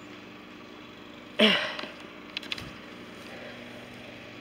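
A person's short, breathy vocal sound, falling in pitch, about a second and a half in. A couple of faint clicks follow a second later, over a faint steady background.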